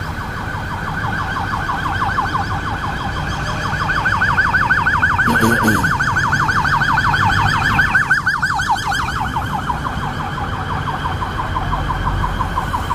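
Emergency vehicle siren in fast yelp mode, a rapid up-and-down wail several times a second. It grows louder to a peak about halfway through, then eases off, over low street traffic noise.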